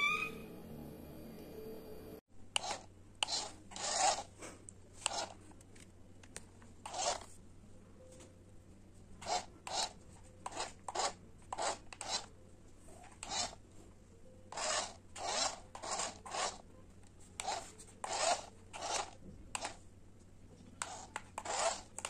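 Kitten's claws scratching and scraping at a fabric bedsheet in short, irregular rasping strokes, about one or two a second, over a faint low hum.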